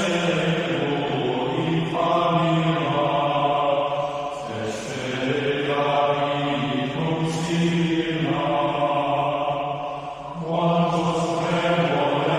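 Slow religious chant: voices holding long notes in unison, moving to a new pitch every two seconds or so.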